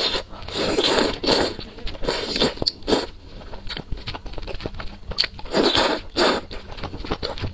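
A person slurping noodles from a spicy soup in several noisy pulls, about three loud ones, with wet chewing and crunchy bites between.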